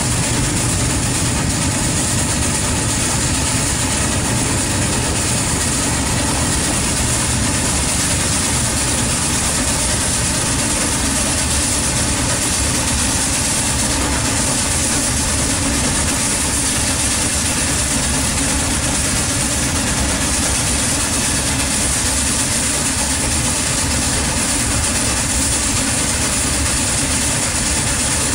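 1899 steam fire engine working its pump to drive a hose stream, a steady mechanical running.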